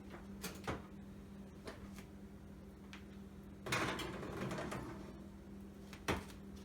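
Oven door and cake pan being handled: a few light clicks and knocks, and a brief scraping about four seconds in.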